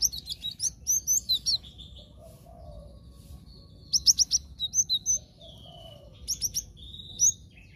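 Cinereous tit (glatik batu) singing in three bursts of rapid, sharp, high chirps: at the start, about four seconds in, and again just past six seconds.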